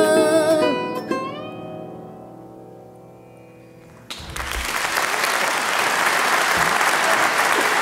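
The ensemble's last held note, a wavering sung note with the sarod, ends, and a final sarod stroke with an upward slide about a second in rings and fades away. About four seconds in, audience applause breaks out suddenly and keeps going steadily.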